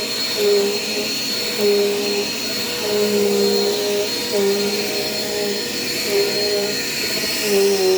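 Dirt Devil Quick Power upright vacuum running, its brush roll turning on a freshly fitted Style 5 belt. It gives a steady high whine, with a lower hum that swells and fades in a regular rhythm about every second and a half.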